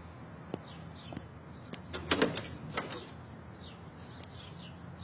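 Clicks and clatter of a house door being unlatched and opened, loudest about two seconds in, with faint bird chirps over a steady low hum.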